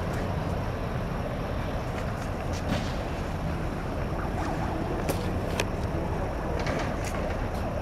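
Can-Am DS 250's 250 cc four-stroke engine idling steadily.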